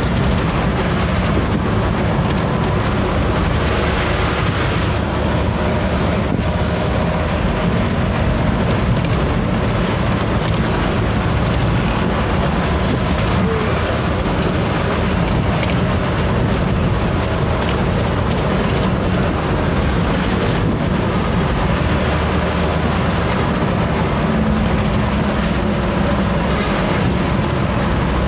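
Loud, steady engine and road noise heard from inside the cab of a moving truck: a continuous rumble, with a faint high whine that comes and goes several times.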